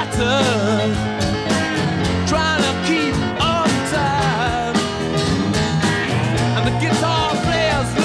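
Late-1960s rock song: guitars, including a wavering, gliding slide line, over bass and a steady beat.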